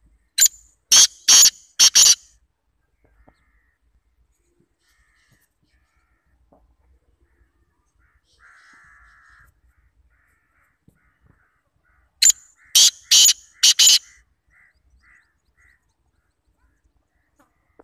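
Black francolin calling twice, about twelve seconds apart: each call a loud, harsh grating phrase of four notes, a short first note and three longer ones.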